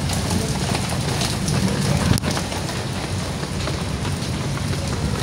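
Steady rain falling, with a single sharp click about two seconds in.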